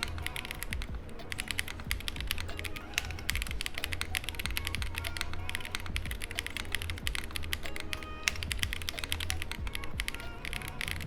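Fast typing on a mechanical keyboard fitted with Akko Botany 5-pin linear switches and double-shot PBT Cherry-profile keycaps: a steady run of mid-pitched clacks and thocks. Background music plays underneath.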